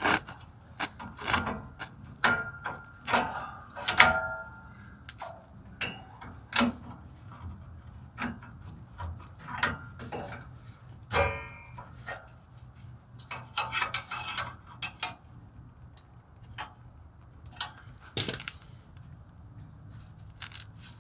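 Irregular metallic clicks, clanks and rattles of parking brake shoes, their springs and hardware being worked loose by hand, a few knocks ringing briefly like sprung metal.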